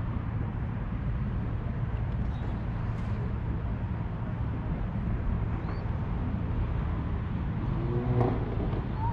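Steady low outdoor rumble, with a brief pitched sound near the end.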